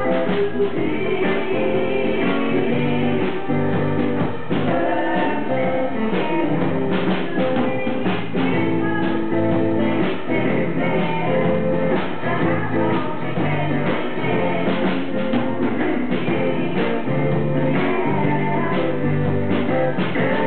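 Live band playing: a singer's voice over electric guitar and a drum kit keeping a steady beat.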